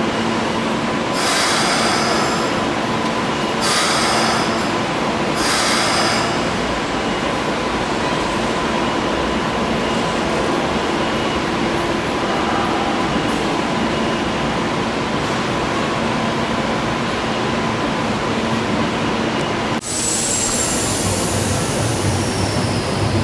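Keikyu 1500-series electric train standing at a platform, with the steady hum and whir of its running equipment. Three short high-pitched bursts of noise come in the first six seconds, and the sound breaks off briefly about twenty seconds in, then carries on.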